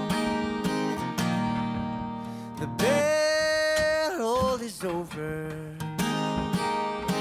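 Background music: a song with strummed acoustic guitar. A long held note about three seconds in wavers and falls away near four seconds.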